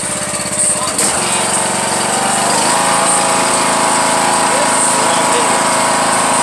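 John Deere riding lawn mower's engine running. It pulses fast at first, and after a sharp click about a second in it picks up speed and runs louder and steadier.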